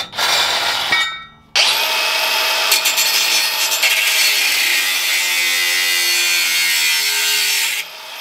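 Cordless angle grinder with a cut-off disc cutting through a steel exhaust pipe. A short buzz comes first, then after about a second and a half the grinder runs steadily with a high whine for about six seconds and stops near the end.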